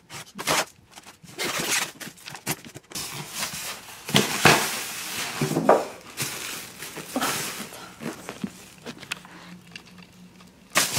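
Packing tape being cut on a styrofoam delivery box and the lid pulled off, then the plastic liner bag inside rustling and crinkling as the frozen meal packs are handled, in irregular scrapes and crackles.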